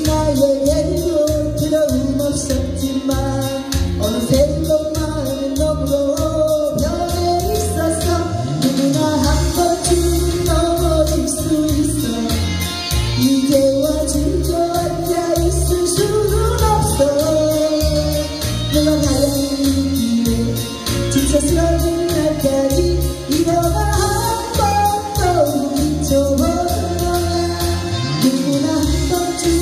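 A woman singing a Korean pop song live into a handheld microphone over instrumental accompaniment with a steady beat.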